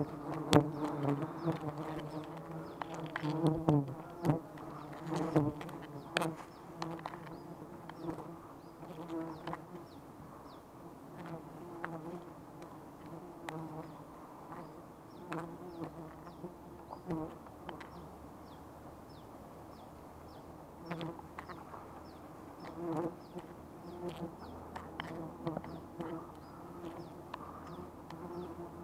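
Swarm of wild honeybees buzzing steadily around their exposed comb as it is smoked and cut away. The buzzing is mixed with sharp clicks and rustles, thickest in the first six seconds.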